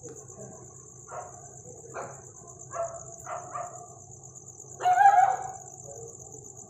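Puppy barking in short, separate yaps, with a longer, louder bark about five seconds in.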